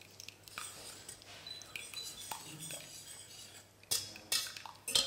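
Metal whisk stirring in a stainless-steel saucepan, with a few sharp clinks against the pot near the end. Under it, faint taps of a pastry brush beating egg in a small bowl.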